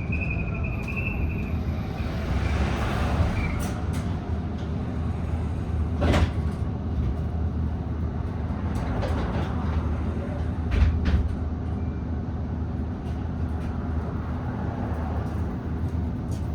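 Interior noise of a BYD D8UR-DD / ADL Enviro400EV battery-electric double-decker bus on the move: a steady low road rumble with scattered rattles and knocks, the loudest about six and eleven seconds in. A faint high whine fades out in the first few seconds.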